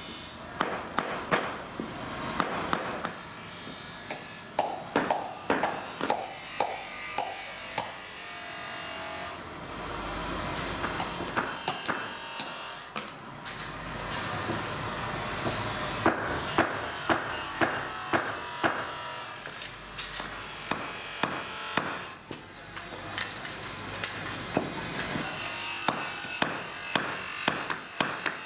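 Hand metalworking on carbon steel knife blades: sharp knocks in irregular runs over a steady scraping, rasping noise.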